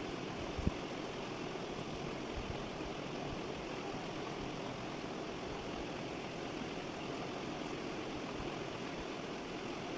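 Steady background hiss with a faint thin high whine over it, and one light knock less than a second in.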